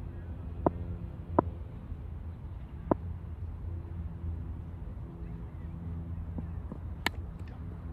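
Steady low outdoor rumble with three light knocks in the first few seconds, then about seven seconds in a single sharp crack of a cricket bat striking a taped tennis ball.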